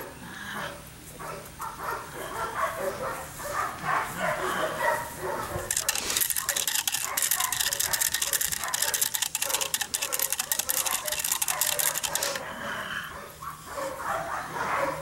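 Dutch shepherd puppy making small dog noises while it grips and tugs a burlap rag. For several seconds in the middle there is a loud, crackly rustling hiss.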